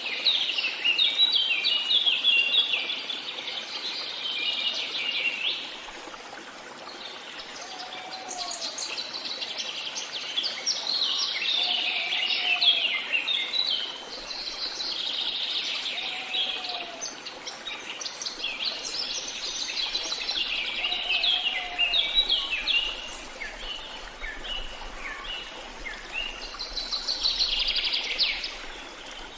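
Songbirds singing in quick, repeated chirping phrases, one song overlapping the next, over a steady background hiss. A short, low, rising-and-falling call repeats four times about four seconds apart in the middle.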